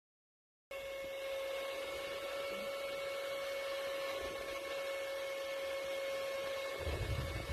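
Small handheld USB fan running: a steady motor whine at one pitch over the hiss of blowing air, starting suddenly under a second in. A low rumble joins near the end.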